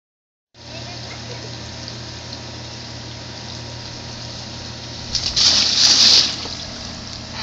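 A child sliding on his side along a wet plastic Slip 'N Slide water slide: a loud wet swoosh and splash lasting about a second, a little after five seconds in, over a steady hiss.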